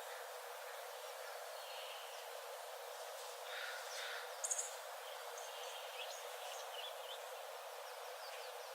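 Small forest birds chirping and calling in short, scattered notes over a steady background hiss, with a brief sharp high chirp about four and a half seconds in.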